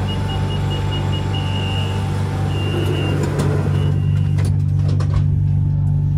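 BTS Skytrain door-warning beeps: a high tone in short and longer pulses for about four seconds, then a few clunks as the doors shut. A steady low hum of the train runs underneath, and the noise from the platform dulls once the doors are closed.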